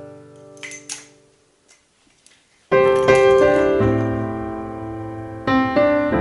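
Background piano music: held notes fade away into a brief near-silent pause, then a loud chord comes in about two and a half seconds in and the piano carries on with new notes.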